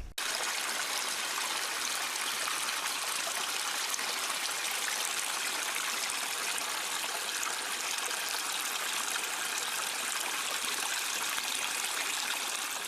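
Steady running water, like a trickling stream, an even rushing sound with no separate splashes.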